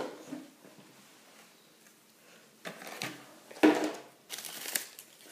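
Small plastic toy pieces being handled and set down on a tabletop: a few short knocks and rustles in three clusters, starting about two and a half seconds in.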